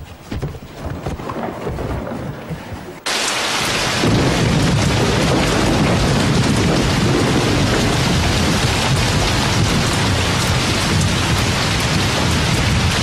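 Heavy rain pouring down, starting suddenly about three seconds in as a loud steady wash with a deep rumble beneath it. Before it come a few soft knocks and rustles.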